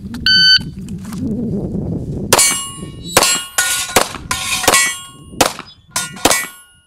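Shot timer beeps once, then about two seconds later a pistol fires a quick string of about eight shots over some four seconds, each followed by the ring of steel plates being hit.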